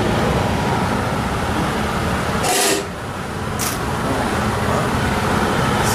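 Steady low rumble of a running home furnace, with a short hiss about two and a half seconds in and a shorter one a second later.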